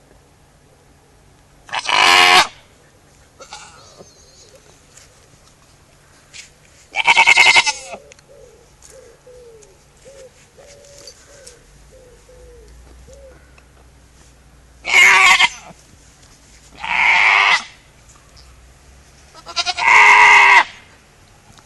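Goat bleating: five loud calls, each under a second long, spaced a few seconds apart.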